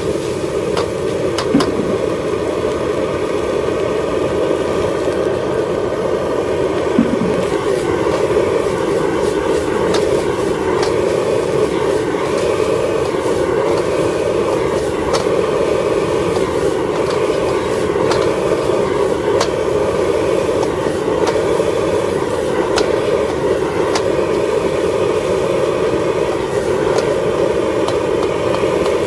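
Gas wok burner roaring steadily under a street-stall wok, with scattered light clicks of a metal spatula or ladle against the wok.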